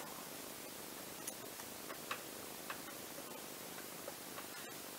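Small precision screwdriver working the screws of a Nikon zoom lens's bayonet mount: several faint, irregular ticks of the tip against the screws and mount, over a steady hiss.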